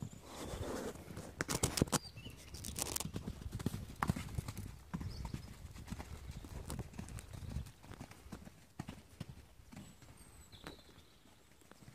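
Hoofbeats of a ridden horse cantering on an arena's sand surface, a run of dull thuds that grows fainter after about eight seconds.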